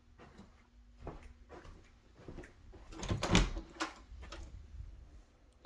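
A closet door being opened: a series of clicks and knocks, loudest about three seconds in.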